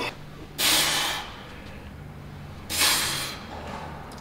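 Two sharp, hissing exhalations about two seconds apart: a bodybuilder breathing out hard through the mouth while straining through reps on a chest-fly machine. A low steady hum sits underneath.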